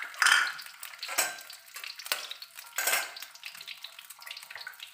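Eggs frying in hot oil in an aluminium wok, a steady sizzle, with four sharp taps about a second apart as another egg is cracked and broken open over the pan.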